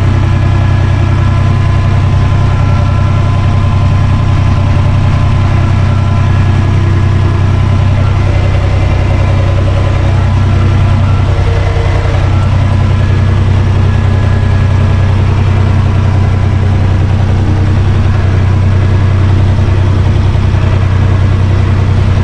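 Universal U445 DT 4x4 tractor's diesel engine running at a steady speed, heard from inside the cab.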